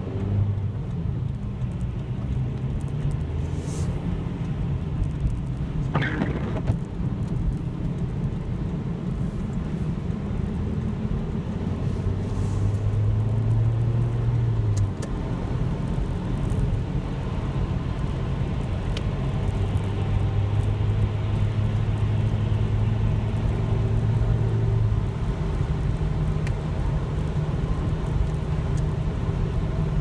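Inside a moving car on a wet road: steady engine and tyre rumble with road hiss. The engine's low hum grows louder twice for a few seconds, and there is one short, high squeak about six seconds in.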